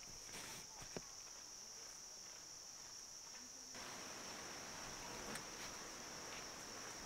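Steady high-pitched trill of crickets in a late-summer forest insect chorus. A single sharp click about a second in, and a soft rushing noise that joins from about four seconds in.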